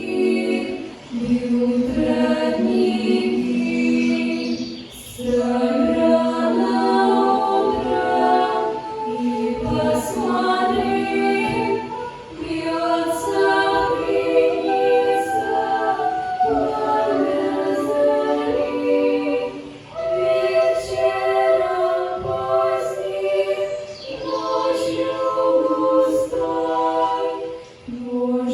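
Vocal ensemble singing a song in several-part harmony, apparently unaccompanied, in sustained phrases with brief breaks for breath between them.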